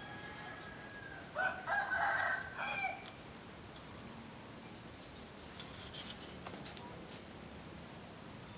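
A rooster crows once, about a second and a half in, a broken call lasting about a second and a half. Faint small bird chirps and light clicks follow.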